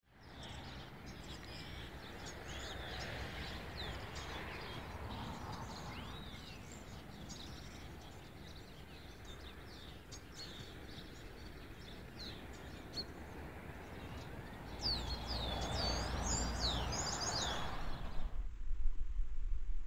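Small birds chirping and singing over a steady outdoor background noise, with a busier run of quick sweeping calls about fifteen seconds in. Near the end the birdsong stops and a plain hiss takes over.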